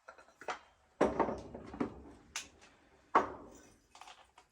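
Irregular metallic clanks and knocks from working the hydraulic bottle jack of a newly assembled 12-ton shop press, pumping the jack handle to test it. The loudest knocks come about a second in and just after three seconds in.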